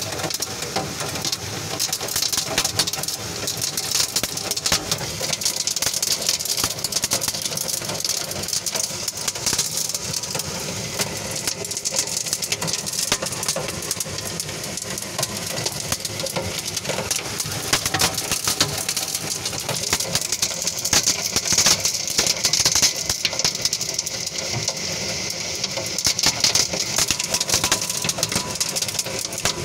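Hailstorm with wind-driven rain: a dense, continuous rattle of hailstones striking over a hiss of heavy rain, swelling louder in gusts several times.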